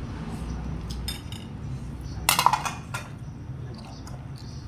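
Cutlery clinking and scraping against a bowl while eating noodles, with a few light clicks and a louder cluster of clinks about halfway through.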